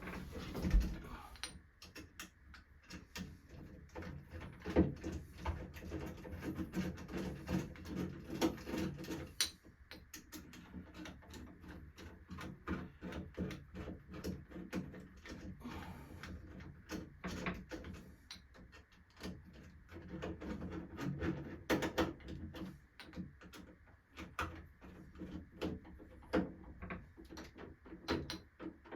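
Irregular small clicks and taps of door-knob hardware being fitted and worked, with a few louder knocks: metal screws, latch and knob parts being handled and turned.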